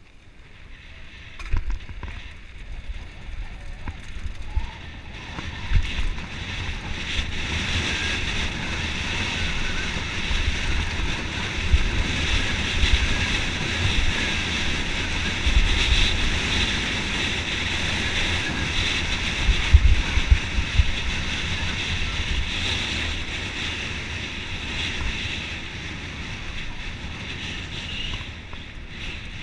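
Wind buffeting a riding action camera's microphone, mixed with mountain bike tyres rolling fast over a loose gravel and dirt trail. A low rumble runs under it, with occasional low thumps as the bike hits bumps. It builds after the start, is loudest through the middle and eases near the end.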